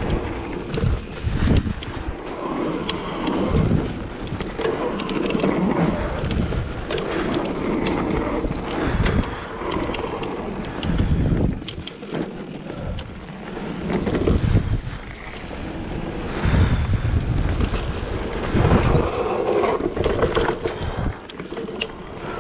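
Wind buffeting the microphone in uneven gusts as a Giant Trance E+ electric mountain bike rolls along a dirt trail, with tyre rumble and frequent sharp rattles and knocks from the bike over bumps and roots.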